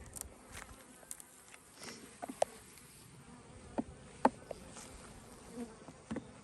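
Honeybees buzzing around an opened hive, stirred up by frames being pulled, with a few sharp clicks, the loudest about two and a half and four seconds in.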